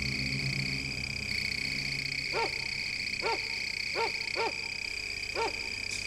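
Night ambience: a steady high-pitched insect trill throughout, with five short animal calls, each rising then falling in pitch, from about two seconds in. A low musical drone fades out in the first second.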